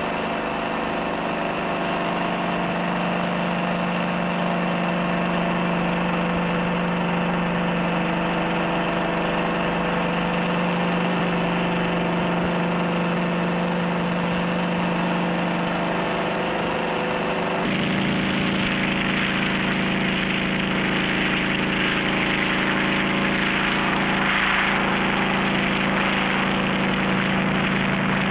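Westland-Sikorsky S-51 helicopter's piston engine and rotor running steadily in a hover, with a constant engine hum. About eighteen seconds in, the sound changes abruptly to a brighter, hissier tone.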